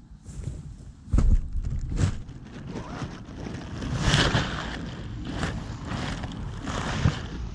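Grass and dry stems rustling and brushing against the camera's microphone as it is pushed through them, over a low handling rumble, with a thump about a second in.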